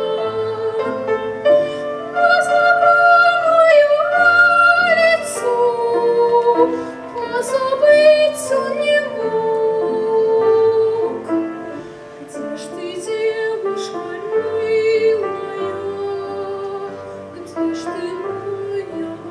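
A woman singing in a trained classical, operatic style with vibrato, accompanied by a grand piano. The singing grows softer about halfway through.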